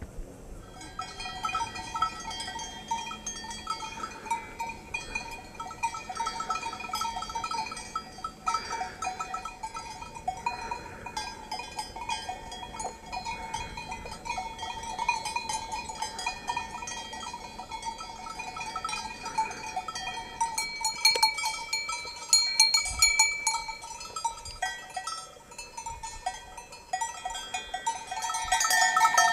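Bells on grazing sheep clanking and jingling continuously as the sheep move, a jangle of several ringing tones that gets louder near the end.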